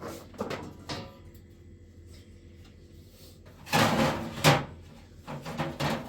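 Two short knocks, then a louder burst of clattering and banging about four seconds in, with more knocks near the end, like hard objects being handled or a door or cupboard being shut.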